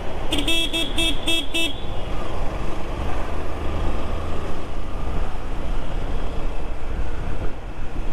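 A vehicle horn beeps five times in quick succession within about a second and a half, near the start. Underneath is the steady rush of wind on the microphone and the road noise of a motorcycle moving at city speed.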